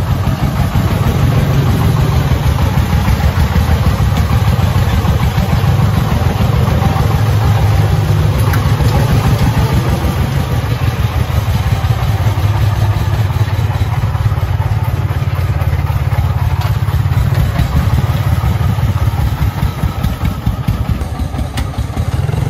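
Single-cylinder diesel engine of a loaded công nông farm truck running steadily with a fast, even chug as the truck drives along. The sound dips slightly near the end as the truck pulls away.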